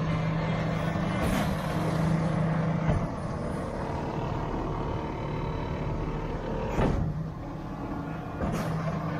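Delivery truck's engine running steadily while its hydraulic walking floor pushes a load of compost out the open back of the bed, with several sharp knocks along the way.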